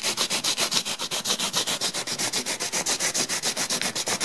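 Hand sanding with a foam sanding sponge on painted pine crown molding: quick, even back-and-forth rubbing strokes, about six a second, smoothing dried wood filler at a joint.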